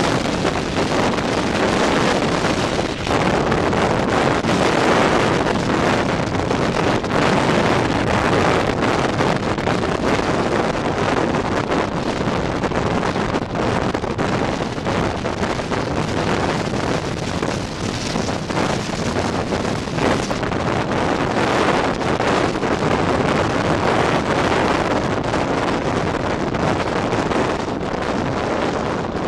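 Wind rushing over the microphone of a camera on a moving motorbike: a steady, loud noise that covers the engine and road sound, easing slightly near the end as the bike slows in traffic.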